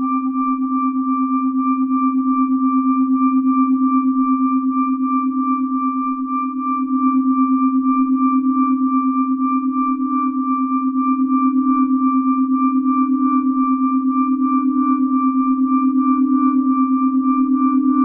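Audio feedback drone: a strong low tone and several higher ringing tones held steadily together, throbbing slightly. The sound dips briefly about six and a half seconds in, and the low tone then swells a little.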